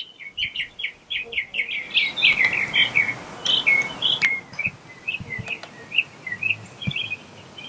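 Small birds singing and chirping: a fast run of repeated high chirps for about the first three seconds, then shorter, varied phrases.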